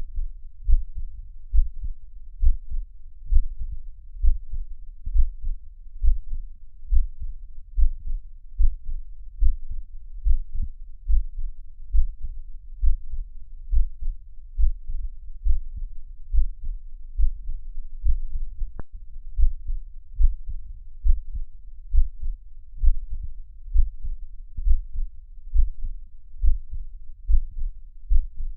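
Recorded heartbeat: a steady rhythm of low, muffled thumps, a little faster than one beat a second.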